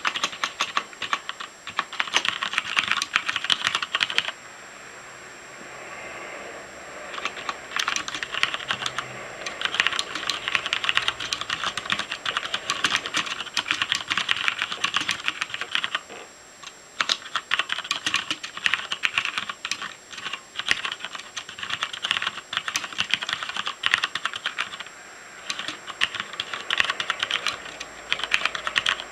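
Typing on a Noppoo Choc Mini mechanical keyboard with Cherry MX Black linear switches: runs of rapid keystroke clacks, broken by short pauses about four seconds in, around sixteen seconds and around twenty-five seconds.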